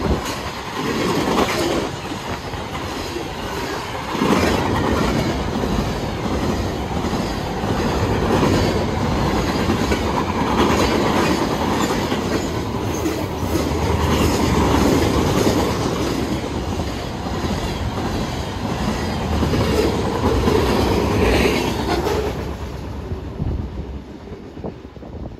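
Freight train cars (covered hoppers, a tank car and open hoppers) rolling past close by, steel wheels clicking over the rail joints. The sound fades near the end as the train moves away.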